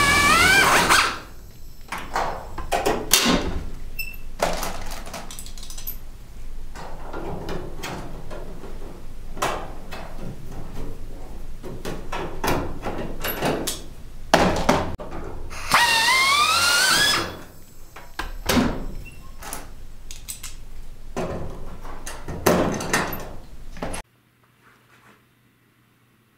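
Handheld pneumatic (air-powered) tool running briefly with a rising pitch, stopping about a second in, then running again for about a second around the middle. In between come repeated sharp clicks and knocks of hand tools and metal parts being handled.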